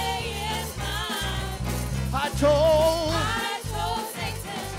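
Live gospel praise song: several singers holding wavering vibrato notes between sung phrases, over a live band with steady bass notes that change about once a second.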